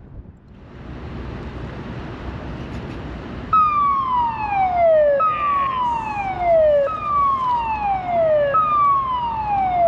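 Hydroelectric dam's warning siren sounding a repeated falling wail, each tone sliding down for about a second and a half, four times, starting about three and a half seconds in. It warns that the flow is about to be turned up and more water let out through the dam. A rushing noise builds over the first seconds.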